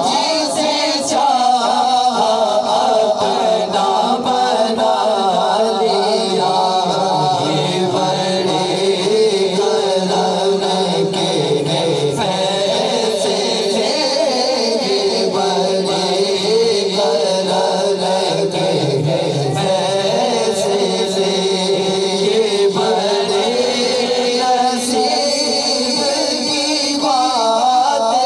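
A group of men singing a naat, a devotional poem in praise of the Prophet, into microphones: one lead voice with others singing along, without a break.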